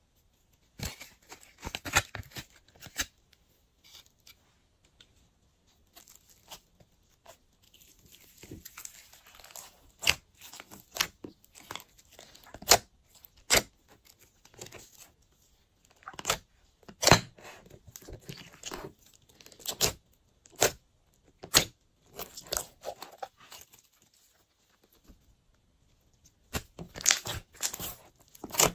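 Glossy slime being pressed, poked and stretched by hand, making irregular sticky clicks and crackles with short quiet gaps. A denser run of crackling comes near the end as the mixed slime is pulled apart.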